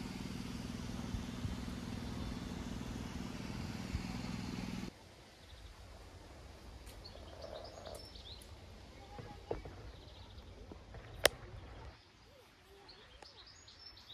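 Outdoor background noise with a steady low hum, which drops abruptly about five seconds in to a quieter bed with a few faint bird chirps and one sharp click.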